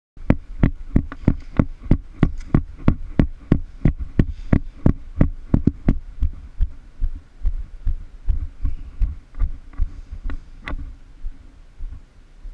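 A fast, even run of thumps, each with a sharp click on top, about three a second. After about six seconds they turn weaker and irregular.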